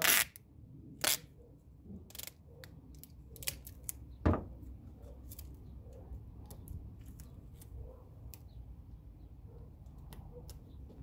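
Adhesive tape being pulled in short ripping strokes and pressed onto a plastic turn-signal lens, with small clicks and crackles as it is smoothed down. The loudest rip comes right at the start, and another sharp one about four seconds in.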